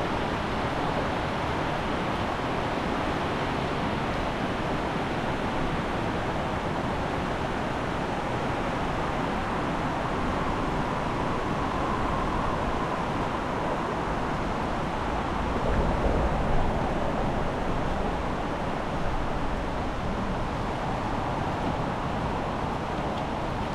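Fast-flowing river in spate, a steady full rushing of water. A brief louder low rumble comes in about two-thirds of the way through.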